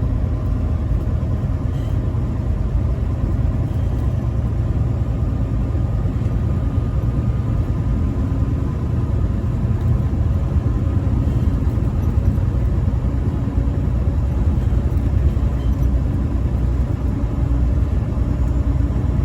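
Truck driving down the road: a steady low rumble of engine and road noise with no breaks.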